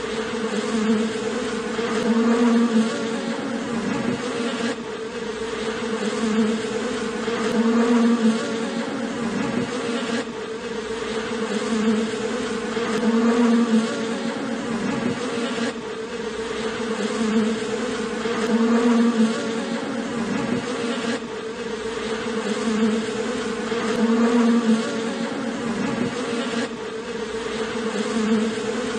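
A honeybee colony buzzing on its combs: the steady, dense hum of many bees, swelling and easing every few seconds.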